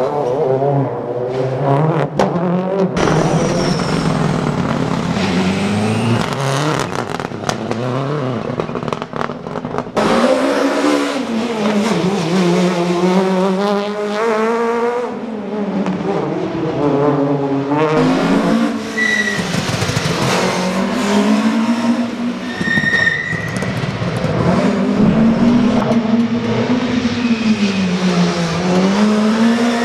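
Rally cars' engines revving hard and falling back again and again as they accelerate and brake through tight corners, with brief tyre squeals. Several passes are cut one after another, so the sound changes abruptly a few times.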